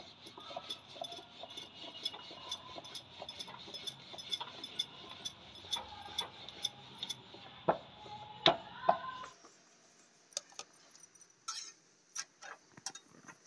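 Kitchen sounds of roti-making at a gas stove: a few light clinks and knocks of utensils and pans, over a steady soft ticking of about three to four ticks a second and a faint hiss that both stop suddenly about nine seconds in.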